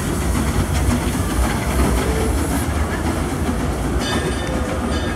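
Passenger cars of a steam train rolling past on the track, a steady rumble of wheels on rail.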